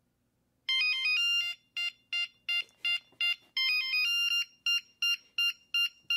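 Electronic ringtone-style melody: short beeping synth notes that jump between pitches in a quick, even rhythm, starting about a second in.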